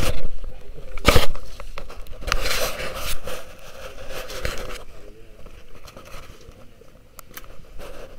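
Handling noise from a handheld camera: fingers rubbing and scraping over its body and microphone, with two loud knocks in the first second or so and a stretch of rustling about two to three seconds in, then quieter.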